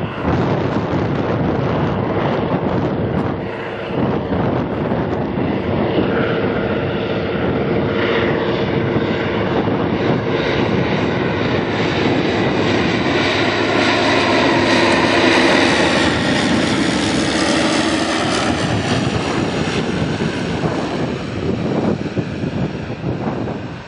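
Propeller airplane's piston engine running loud as the plane passes close by. It swells to its loudest a little past the middle, while the engine's pitch bends as it goes by.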